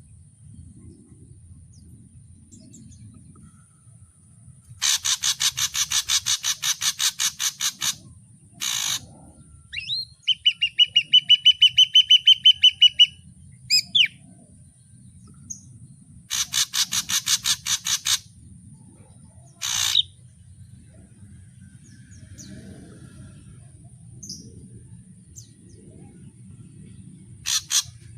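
Ashy drongo singing in separate phrases: a rapid run of harsh, rattling notes, a clear fast whistled trill, then another harsh run, with single short calls between them and a short double note near the end.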